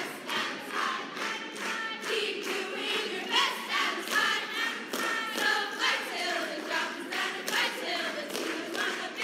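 A group of voices singing a school song together over a steady beat of claps, about two a second.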